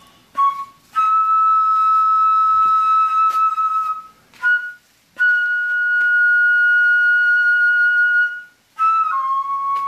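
Background music: a flute playing slow, long held notes, two of them about three seconds each, with short notes and brief breaks between.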